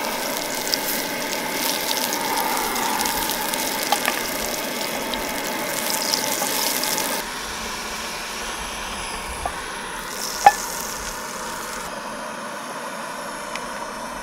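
Food sizzling as it fries in a pan, with a few sharp ticks and pops; the sizzle drops in level about halfway through.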